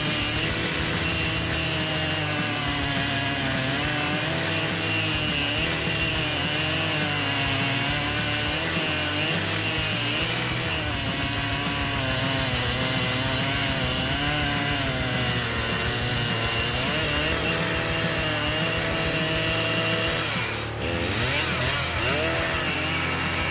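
Chainsaw running as it cuts wood, its engine pitch wavering up and down with the load. Near the end it dips briefly and revs back up.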